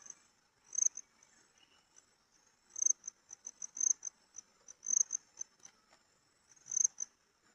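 Crickets chirping: short, high-pitched pulsed trills repeated in bursts of under a second.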